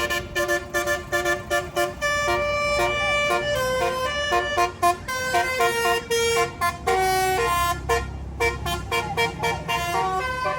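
Bus 'telolet basuri' melody air horn playing a fast tune of short honked notes, jumping from pitch to pitch with no pause, with a low engine rumble under it in the second half.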